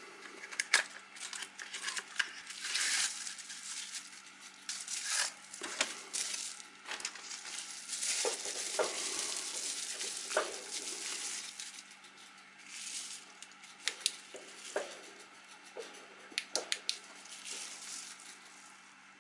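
Unboxing handling noise: a cardboard flashlight box opened and a plastic bubble-wrap sleeve crinkled and pulled off the flashlight, with scattered clicks and knocks. A quick run of sharp clicks comes near the end.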